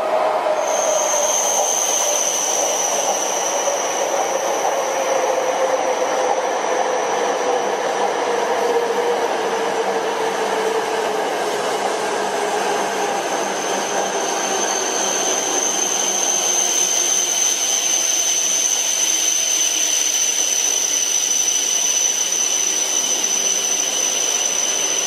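E5 series Shinkansen running past a station platform: a steady rush of wheel and air noise, with a motor whine that slowly falls in pitch over the first ten seconds or so. A thin high whistle sets in suddenly about a second in and holds steady.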